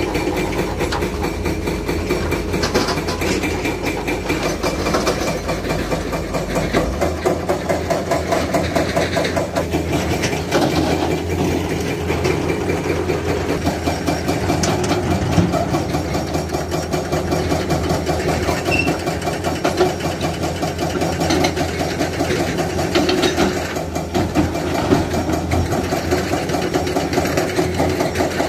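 Hydraulic excavator's diesel engine running steadily at a working site, with frequent short knocks and clanks over the engine sound.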